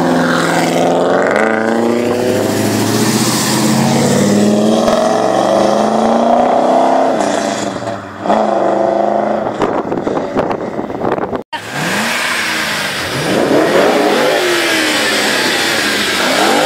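Ford Mustang V8 engines. First one accelerates hard, its pitch climbing and dropping back at each gear change; after a cut, one is revved in several quick blips, each rising and falling.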